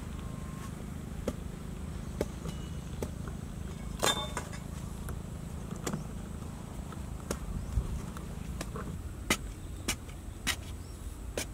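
Sharp knocks of a long-handled digging tool striking into soil, coming more often in the second half, over a steady low rumble.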